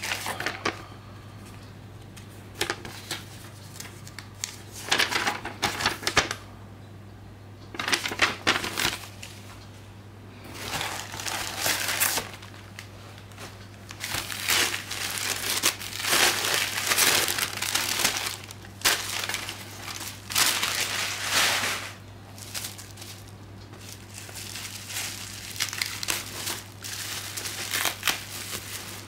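Paper wrapping and bubble wrap crinkling and rustling in repeated bursts as a packaged Blu-ray is lifted from a cardboard box and unwrapped, over a steady low hum.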